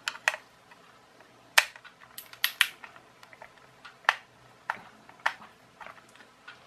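Irregular plastic clicks and knocks as a toy RC car transmitter's plastic case is taken apart with a screwdriver and its halves are separated. The loudest knocks come about one and a half seconds in and in a quick cluster a little later.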